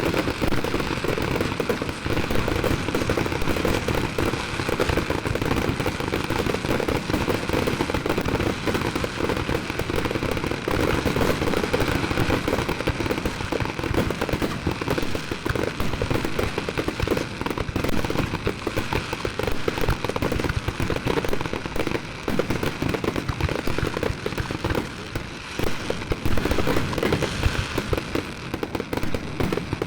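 Fireworks finale barrage: shells bursting and crackling in a dense, continuous volley, many bangs overlapping every second with no let-up.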